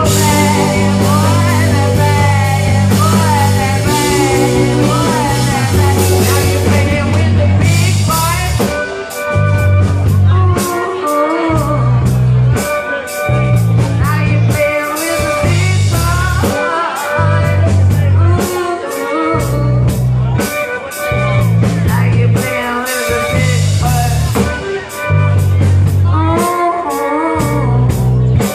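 Rock band playing live, with electric guitar, bass, drums and a singing voice. The bass starts and stops in a choppy rhythm from about eight seconds in.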